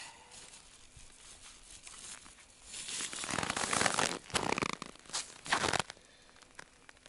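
Crunching and rustling of hard, frozen snow and stiff winter clothing as a big burbot is picked up off the snow and hooked onto a hand scale. Loud for about three seconds in the middle, in a few rough bursts, with only faint rustling before and after.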